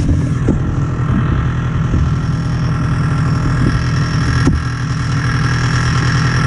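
Snowmobile engine running steadily at a constant pace, with a brief sharp click about four and a half seconds in.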